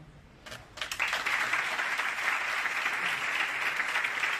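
Audience applause: a few scattered claps, then steady clapping from the whole room from about a second in.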